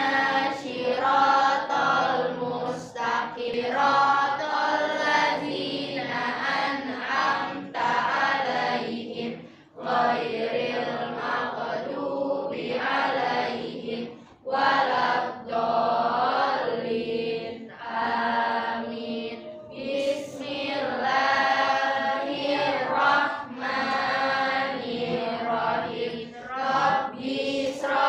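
A class of schoolchildren chanting a religious recitation together in unison. The chant is steady, with short pauses for breath.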